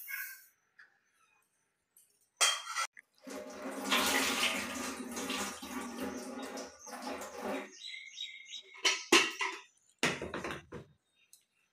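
A steel vessel knocks, then tap water runs for about four seconds into a steel container of little millet (chama rice) as it is rinsed at a stainless-steel kitchen sink. Clinks of the vessel and splashes follow.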